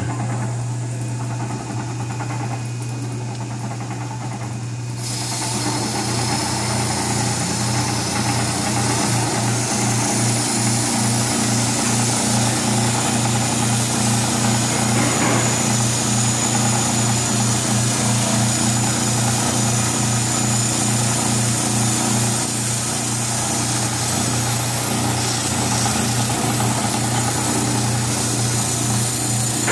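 Grinder motor running with a steady hum, then from about five seconds in its metal wheel grinding against a steel window hinge with a loud, steady hiss, stripping layers of old paint down to bare metal.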